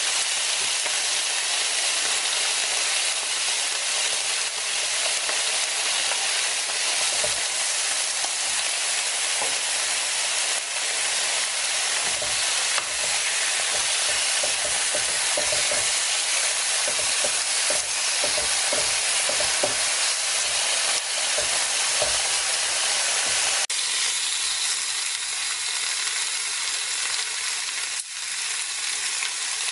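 Pork pieces sizzling steadily on a hot tabletop grill plate. Occasional soft knocks come from metal tongs and scissors turning and cutting the meat.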